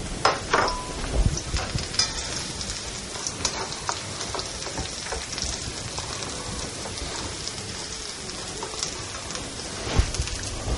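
Sliced carrots sizzling in hot oil in a wok: a steady frying hiss, with a few sharp knocks near the start and again near the end.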